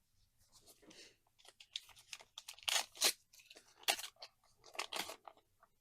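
Foil trading-card booster pack being torn open and its wrapper crinkled: a run of irregular crackling tears, loudest in the middle and near the end.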